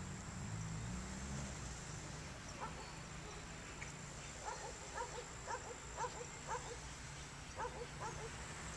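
A dog barking in short repeated barks, about two a second, starting a couple of seconds in and stopping near the end. A faint low rumble runs underneath.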